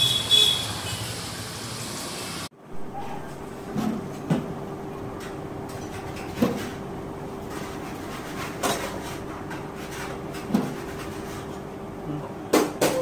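Steady outdoor background noise that cuts off abruptly, then kitchen handling sounds: round bread slices being laid on the wire racks of a toasting oven, with scattered knocks and metal rattles over a steady hum.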